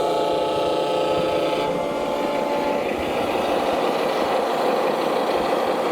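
Radio-controlled model construction machines running: a steady electric motor and gear whine that stops between two and three seconds in, over a continuous rough mechanical noise.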